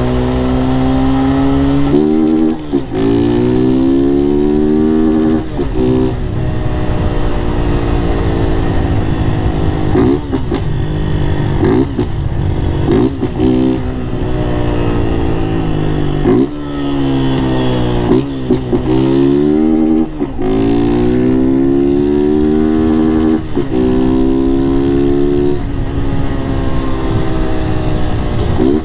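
Honda CG 160 Start's single-cylinder four-stroke engine, run without its air filter, pulling hard through the gears. The note climbs in pitch, drops sharply at each shift, then climbs again, over several runs of acceleration.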